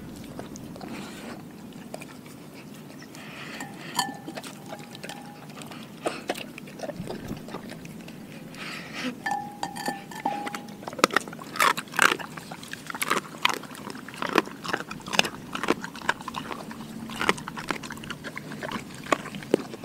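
A Doberman eating raw food: wet chewing with sharp crunches, sparse at first and then rapid and dense through the second half. A brief ringing tone sounds twice along the way.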